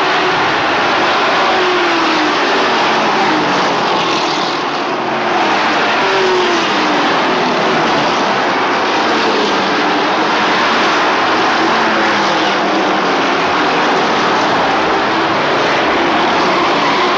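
Race truck engines at racing speed on an oval track. Several engine notes overlap, rising and falling in pitch as the pack passes and lifts through the turns, over a steady wash of engine and tyre noise.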